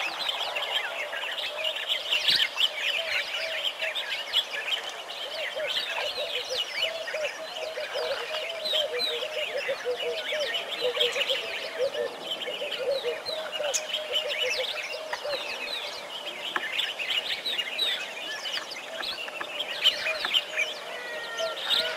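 A dense chorus of many small birds chirping and calling without pause, with a lower, continuous wavering call running underneath.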